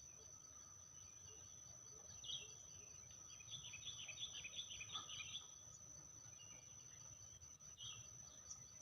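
Faint birds chirping: a short burst of quick high chirps a couple of seconds in, a longer run of them in the middle, and another near the end. Under them runs a steady high-pitched insect drone and a low background rumble.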